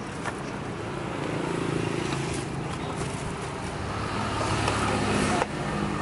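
A motor vehicle engine running close by with street traffic noise, growing louder over the first few seconds and breaking off abruptly near the end.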